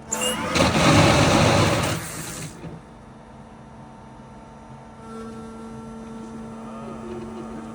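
Brokk 200 demolition robot with a BSG 530 grinder attachment: a loud burst of grinding for about two and a half seconds, then the machine's steadier, quieter running hum.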